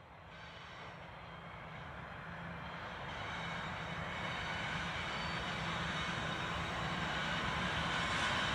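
NR class diesel-electric locomotives approaching slowly at the head of a freight train, their engines a steady low drone that grows gradually louder.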